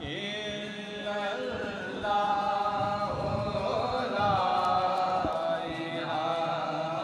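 A man chanting an Urdu devotional salam (naat) into a microphone without instruments, drawing out long notes that bend up and down.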